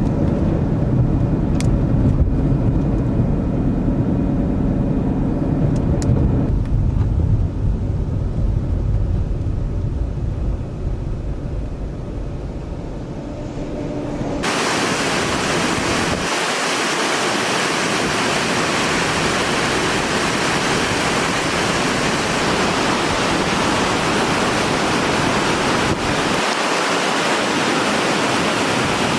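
Tropical-storm wind buffeting the microphone as a heavy low rumble, changing abruptly about halfway through to a steady, loud rushing hiss of storm wind and water.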